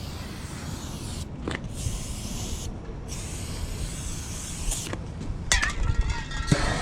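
Aerosol can of starter fluid hissing as it is sprayed in bursts into the gap between a semi-truck tire's bead and the rim, to seat the bead. The hiss stops twice; a few sharp clicks follow near the end.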